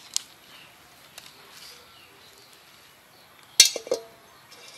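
A metal wok set down on the stones over a small wood fire: one sharp clank about three and a half seconds in that rings briefly, followed by a few lighter knocks as it settles.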